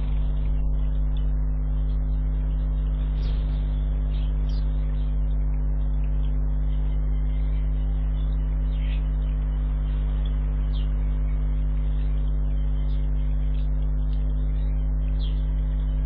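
A steady low electrical hum throughout, with faint short chirps of small garden birds at the feeders a few times above it.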